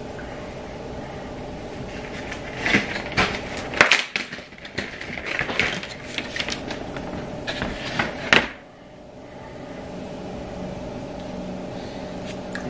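A string of sharp clicks and knocks, like household objects being handled, over a steady low hum. The knocks bunch up in the middle and stop suddenly, leaving only the hum.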